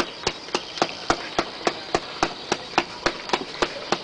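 A steady, even rhythm of sharp clicks or taps, about three and a half a second.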